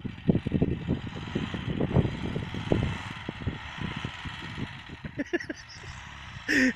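Engine of a homemade go-kart-based buggy running as it drives through snow across the field, heard from a distance as an uneven, pulsing rumble. A short, loud sound comes near the end.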